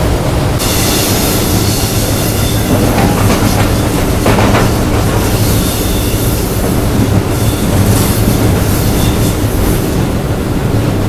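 Class M8 (Indian-built WDM-3) diesel locomotive running along the line, heard from its cab: a steady low engine drone under the rush of wheels on the rails and wind. A short, louder clatter comes a little after four seconds in.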